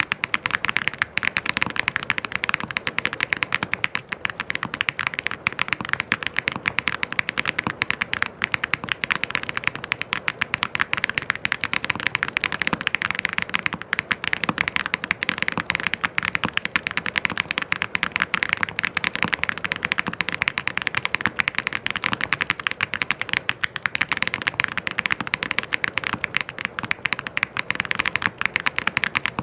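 Mechanical keyboard being typed on fast and continuously: a dense, even stream of key clicks.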